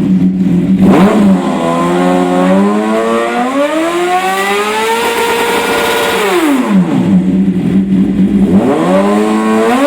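Suzuki GSX-R 750's inline-four running loudly through a custom-welded straight-through exhaust with the EXUP valve and lambda sensor removed. It idles, then revs up in one long climb, holds briefly and drops back to idle, then begins a second climb near the end.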